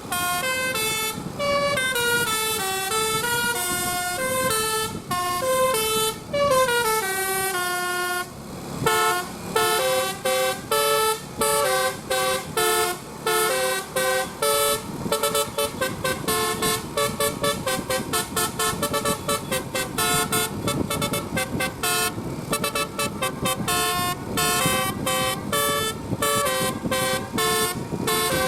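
Bus 'telolet basuri' musical horn, a set of electric horns playing a tune. For about the first eight seconds it plays a flowing melody with some sliding notes, then it switches to a quick run of short, separate notes.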